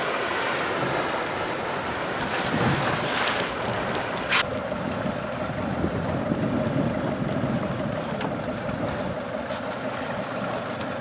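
Motorboat running on open water: steady engine and water noise with wind buffeting the microphone, and one sharp click about four seconds in.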